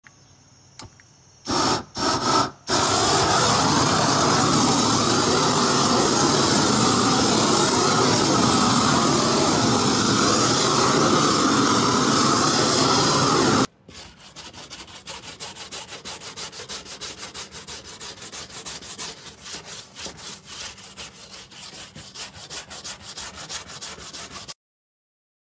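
Propane torch burning steadily as it heats old paint on deck boards, coming on with a few short bursts first. About 14 seconds in it cuts off, and a hand wire brush scrubs the softened paint off the wood in quick, much quieter strokes, several a second.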